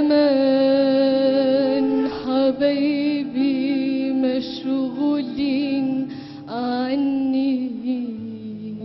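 A solo singer holding long, ornamented notes with heavy vibrato in an Arabic melody over instrumental backing; the voice breaks off near the end.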